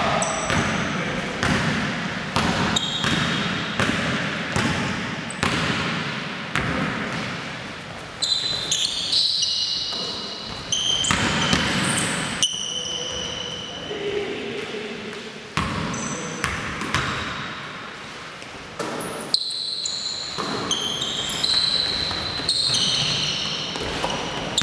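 Basketball bouncing on a wooden gym floor, mixed with short high-pitched sneaker squeaks and players' voices, echoing in a large hall.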